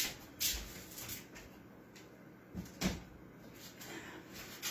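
Faint kitchen handling noises with two short knocks, one about half a second in and one near three seconds in, like a cupboard or container being knocked or closed.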